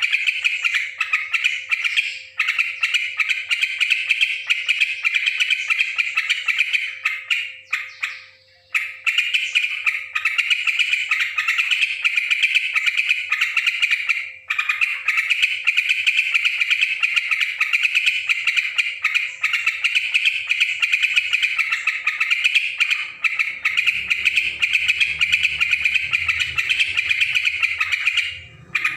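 Yellow-vented bulbul (trucukan) chattering noisily in a fast, continuous run of harsh, squawky calls, with a few brief breaks.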